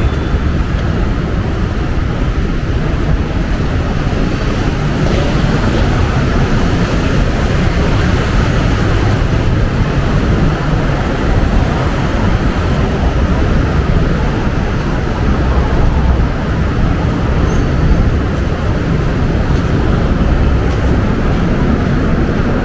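Heavy road traffic running steadily, with a constant low rumble of passing vehicles and no single sound standing out.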